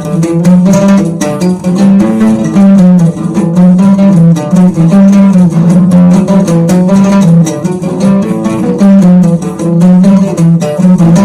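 Music: a plucked-string melody over a low bass line that steps between notes.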